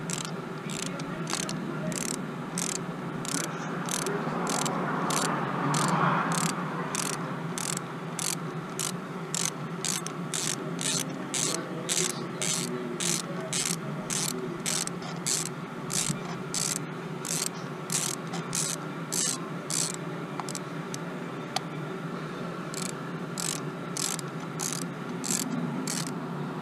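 Ratchet wrench clicking in short, even bursts, about two a second, as it is swung back and forth to thread a new spark plug into the engine's plug well.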